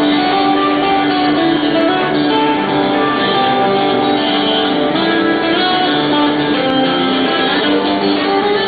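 A guitar playing a steady run of strummed and plucked chords and notes, with no singing.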